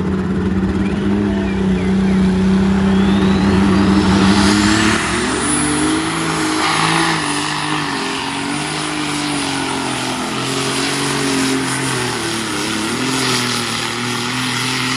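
John Deere pulling tractor's engine running hard at full throttle while it pulls the sled down the track. The note holds steady, then wavers under load from about five seconds in. A high whine climbs in pitch a few seconds in.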